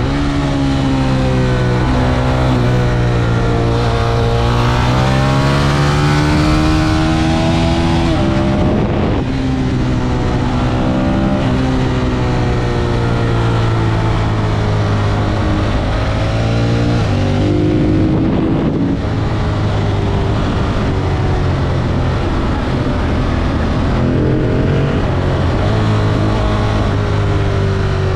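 Ducati Monster 1200 S's L-twin engine under way, its note climbing and falling several times as the rider works the throttle, with a sharp drop in revs a little past halfway.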